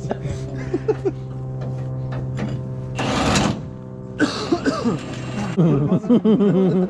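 A steady motor hum with a short burst of hiss about three seconds in. Voices begin near the end.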